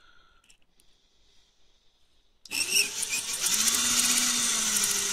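A drill starts about halfway through and spins a spring-loaded stone cylinder hone inside the oiled bore of a Classic Mini rear brake wheel cylinder: a steady whir with the hiss of the stones grinding on the bore. The honing clears light flash rust from the bore.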